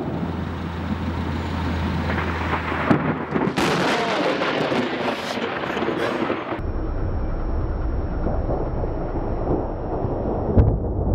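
Road traffic passing close by, swelling as a semi-trailer truck goes by and cutting off abruptly about two-thirds of the way through. A low rumbling follows.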